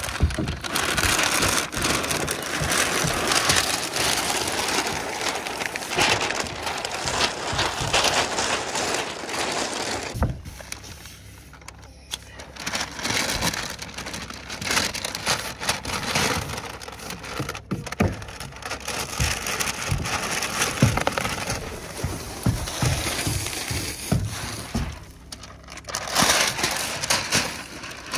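Crinkling and rustling of the stiff release paper peeling away from a roll of Grace Ice & Water Shield self-adhering membrane as it is unrolled onto the roof, with a couple of short lulls.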